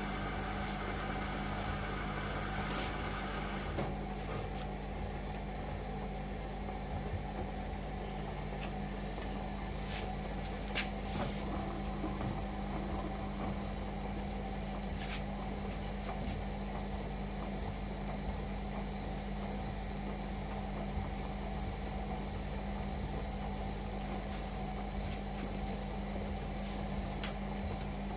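Indesit washing machine running with a steady hum, with a few light clicks and knocks. A hissing layer stops about four seconds in.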